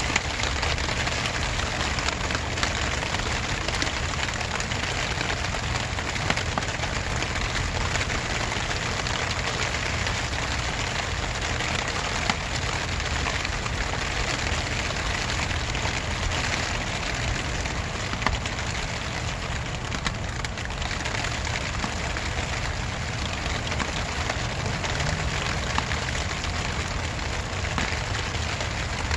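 Steady rain falling outdoors in a continuous even hiss, with now and then a single louder drop ticking.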